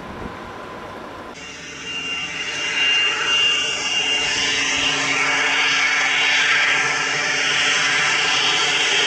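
A Cessna Citation XLS's twin Pratt & Whitney PW545 turbofan engines whining steadily at taxi power: a high steady tone over a rushing hiss. For about the first second and a half there is only a quieter hiss, then the engine sound comes in loud.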